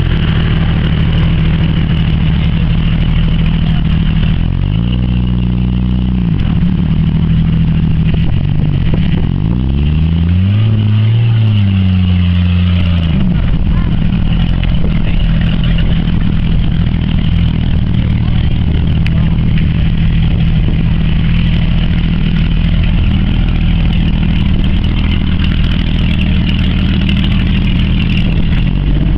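4x4 off-road vehicle engine running, revved up and down twice, about five and ten seconds in, and otherwise held steady: a stuck off-roader straining for grip on a steep muddy slope.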